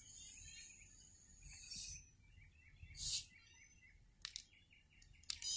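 Cap of a two-litre soda bottle being unscrewed, the carbonation hissing out as it loosens: a long hiss, then two shorter ones about three seconds in and near the end, with a couple of sharp clicks between. Small birds chirping in the background.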